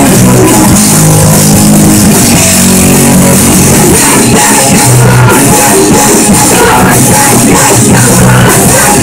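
A rock band playing live and very loud: distorted electric guitars and bass over a driving drum kit with cymbals, with shouted vocals.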